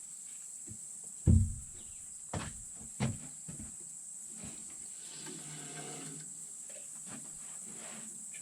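Steady high buzzing of insects, with a few dull knocks, the loudest about a second in, and a short drawn-out call about five seconds in.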